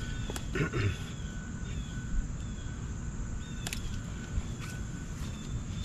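Outdoor background of faint bird chirps over a steady low rumble, with a few sharp clicks from cable and tool handling.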